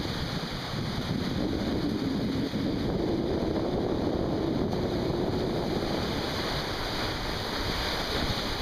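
Rough surf washing up over concrete beach steps and breaking, a steady rush of water with wind buffeting the microphone.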